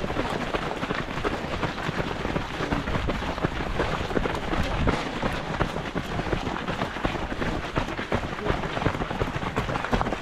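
Steady noise of running: quick, irregular footfalls and rustling, with wind rushing over the microphone of a camera carried by the runner.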